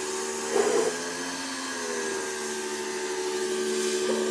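Electric pressure washer running with the 40-degree nozzle fitted: the steady hum of its electric motor and pump over the hiss of the water spray. The hum shifts slightly in pitch about two seconds in.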